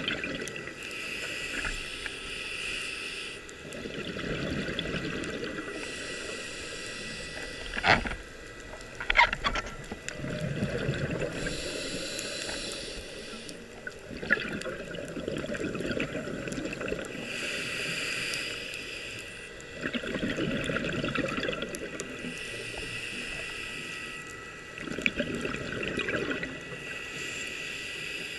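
Scuba diver breathing through a regulator, heard underwater: a hiss on each inhale alternating with a rush of exhaled bubbles, about one breath every five to six seconds. Two sharp clicks sound about a third of the way through.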